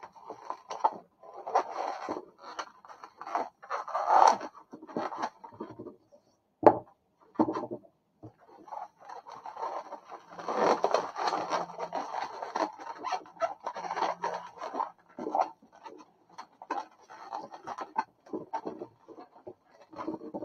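Long latex modelling balloons rubbing and scraping against each other and against hands as they are crossed and twisted together, in irregular strokes. There is one sharper, louder knock about six and a half seconds in.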